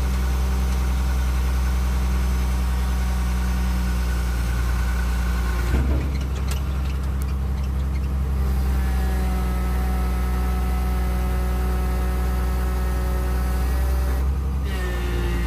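Komatsu PC220LC excavator's diesel engine running steadily under hydraulic load as the boom and stick are worked, with higher steady tones that change pitch about six seconds in and again near the end. The engine holds power with its fuel system fixed by a new primer pump.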